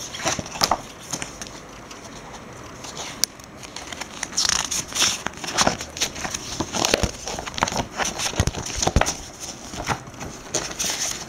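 Clear plastic card-binder sleeve pages crinkling and rustling as they are handled and turned, with irregular clicks and crackles that grow busier and louder about halfway through.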